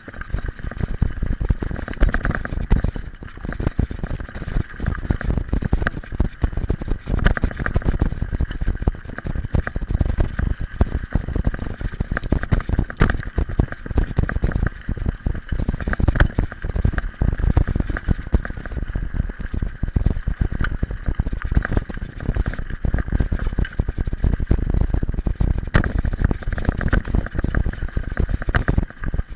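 Mountain bike rolling over a loose gravel road: a constant rough rumble of the tyres on the stones, with many small rattles and knocks as the bike and camera shake.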